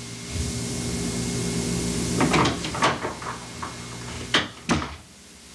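A quick run of knocks and clicks over a steady hum and tape hiss, with two sharper knocks standing out; the sound drops away about a second before the end.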